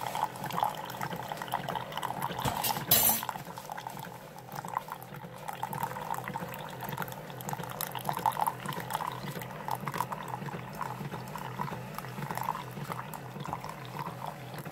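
Keurig single-serve coffee maker brewing, a thin stream of coffee running steadily into a ceramic mug. There is a brief, loud burst about three seconds in.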